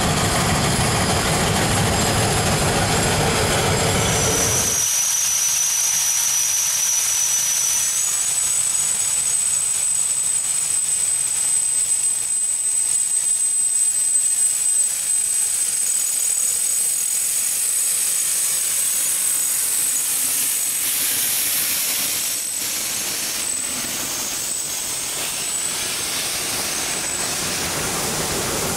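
Shay geared steam locomotive working past with its train: a heavy rumbling run that drops away suddenly about five seconds in, leaving a steady steam hiss with a thin high tone over it and a few short clicks near the end as the cars roll by.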